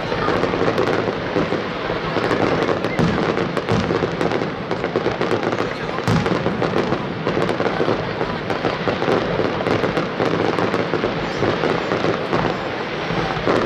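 Fireworks display: many aerial shells bursting and crackling in quick, overlapping succession, without a pause.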